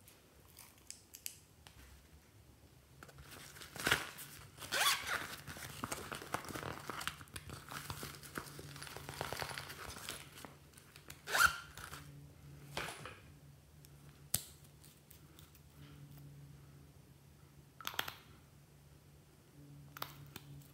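Handling noise: the zip of a fabric pencil case being pulled open, a run of rasping and rustling, followed by sharp clicks and knocks of small plastic items and a nail polish bottle being handled.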